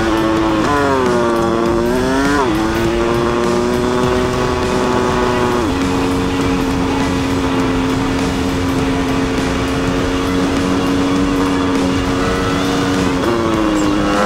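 Motorcycle engine note at speed over wind rush, mostly steady. Its pitch dips and climbs about a second in, drops suddenly near six seconds as if shifting up, and rises again near the end.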